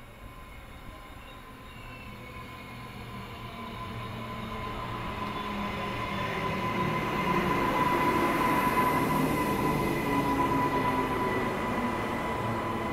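Queensland Rail NGR electric multiple-unit train pulling in alongside the platform, its running noise growing steadily louder to a peak about two-thirds of the way through, then easing slightly. A steady high whine sounds above the rumble throughout.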